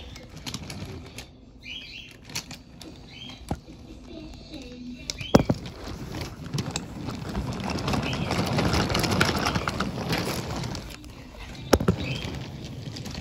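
Rubbing and rustling noise from a phone being handled and moved about, swelling in the middle, with two sharp knocks about five and twelve seconds in and a few short high chirps.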